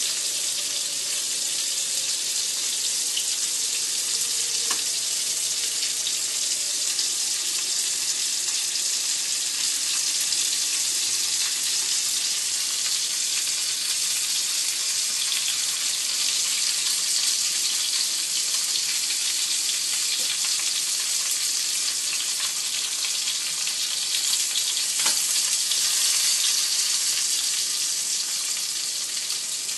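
Korean abalone frying shell-side down in hot oil in a small pan over a high gas flame: a steady sizzle with a few faint pops.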